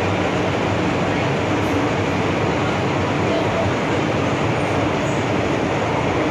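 MTR Tsuen Wan line M-Train electric multiple unit running, heard from on board: a steady, even rumble of wheels on rail and running gear with no change in pace.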